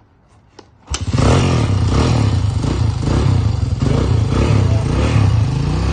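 1997 Honda XR200's single-cylinder four-stroke engine firing up from cold on half choke about a second in, then running loudly with its pitch wavering up and down.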